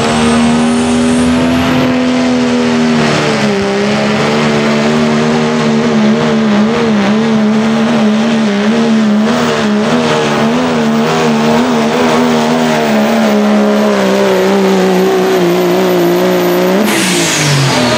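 A Dodge Ram pickup's Cummins turbo-diesel inline-six runs at full throttle under heavy load, dragging a weight-transfer pulling sled. The engine note sags a little about three seconds in as the load builds, then holds and wavers. Near the end the revs drop sharply as the throttle is let off at the end of the pull.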